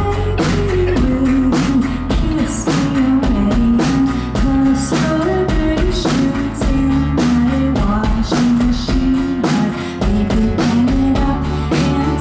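Live indie rock band playing a steady drum beat with bass and guitar, with a woman singing a held, stepping melody over it.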